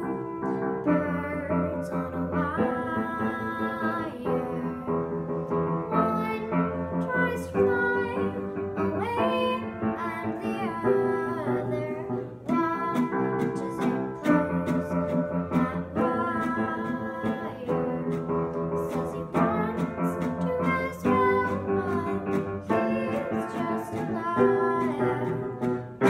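Upright piano and classical guitar playing a song together, with a girl singing over the chords.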